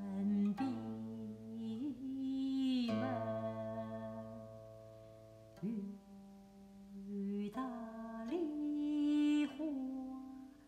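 Guqin playing a slow melody of long plucked notes that slide in pitch and ring on as they fade, with a voice singing softly along as a qin song.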